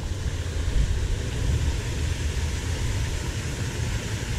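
Wind buffeting the microphone: an uneven low rumble over a steady hiss.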